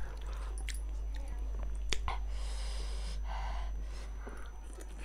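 Close-up eating sounds of chicken thukpa noodle soup: chewing, with a few sharp clicks, the strongest about two seconds in.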